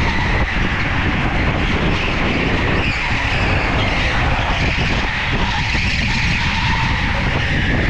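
Go-kart at speed, heard from on board: its motor running steadily with tyre noise as it corners on the track.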